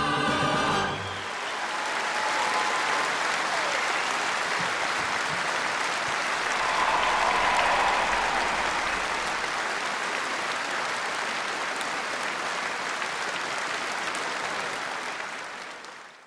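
The final chord of a song by a tenor vocal group with band ends about a second in, and a large audience then applauds steadily. The applause fades out near the end.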